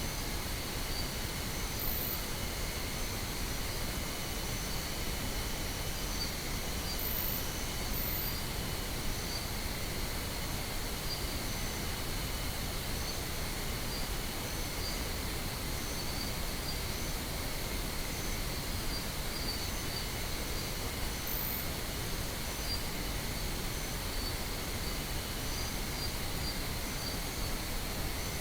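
Steady pink noise, an even hiss with no pauses. A thin high tone and faint short high chirps run over it.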